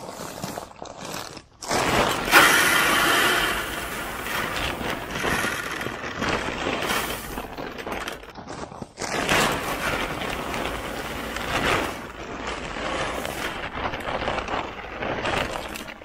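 Whole corn kernels pouring from a bag into a Boss Buck deer feeder's hopper: a steady rushing hiss of grain that starts about two seconds in, breaks off briefly about halfway, then runs on.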